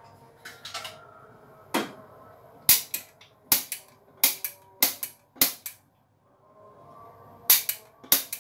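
A run of about a dozen sharp kitchen clicks and knocks, coming one or two a second, with a short gap about six seconds in.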